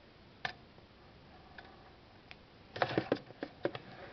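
Light clicks and ticks from a transistorized electroscope: one sharp click about half a second in, a couple of faint ones, then a quick run of several clicks about three seconds in.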